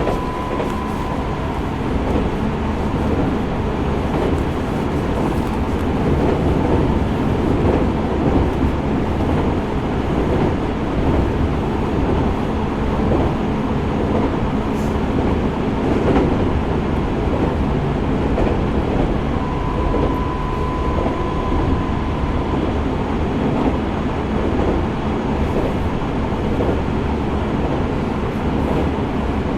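Tokyo Metro 05 series electric train with Mitsubishi IGBT VVVF drive, heard from inside the car running between stations: a steady rumble of wheels on rail and running gear. A faint high steady tone sounds briefly at the start and again about twenty seconds in.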